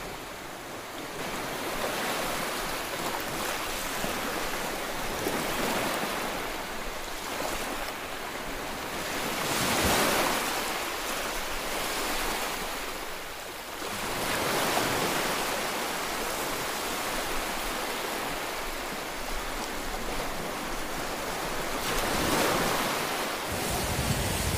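Small waves breaking and washing up on a sandy beach, the surf swelling louder every several seconds.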